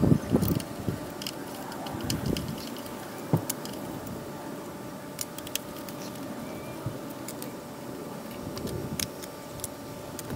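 A screwdriver turning out screws and a plastic air cleaner housing being worked off a small Briggs & Stratton engine's carburetor, with scattered small metal clicks and clinks of tool, screws and bracket.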